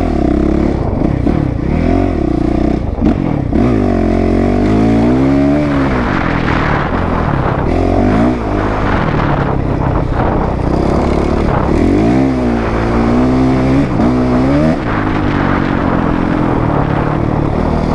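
Honda CRF 450 RX's single-cylinder four-stroke engine under riding load, its pitch repeatedly rising and falling as the throttle is opened and closed.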